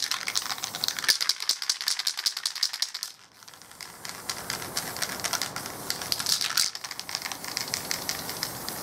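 Aerosol spray paint can being shaken, its mixing ball rattling in fast clicks, with a short break about three seconds in. A brief hiss of spray from the can's nozzle comes later as the purple paint goes on.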